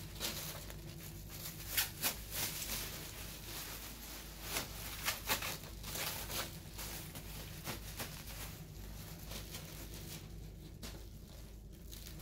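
Thin plastic packaging bags crinkling and rustling in irregular crackles as rubber pressure-cooker gasket rings are handled and packed into them, over a steady low hum.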